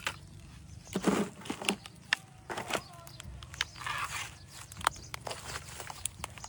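Handling noises: crunching and rustling in short bursts, with scattered sharp clicks.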